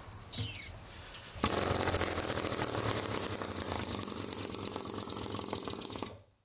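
Homemade two-stroke engine converted from a refrigerator compressor catches on a rope pull about a second and a half in. It runs with a rapid, rough buzz like a weed eater for about four and a half seconds, then dies suddenly. It is running only on white gas squirted into the intake, with the spark plug arcing constantly.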